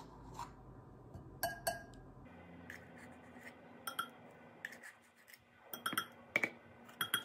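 Metal measuring spoon clinking and tapping against a baking powder can and a glass mixing bowl while baking powder is measured out: a scattering of light, sharp clinks with quiet gaps between.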